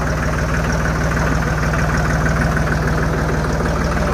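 Diesel tractor engine running steadily at low speed close by, a fast, even chugging that does not change.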